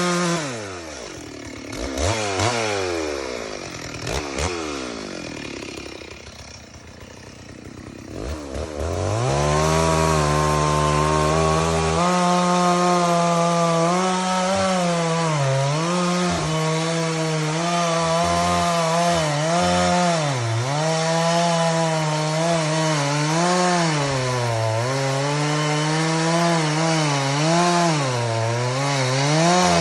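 Stihl 064 two-stroke chainsaw. Its revs fall away just after the start and it runs low with a few short throttle blips for several seconds. About nine seconds in it is opened up again and runs at high revs, cutting wood, its pitch dipping and recovering under the load.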